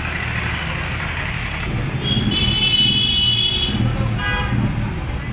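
Road traffic rumbling in the background while a vehicle horn sounds for about a second and a half, followed by a second, shorter horn beep.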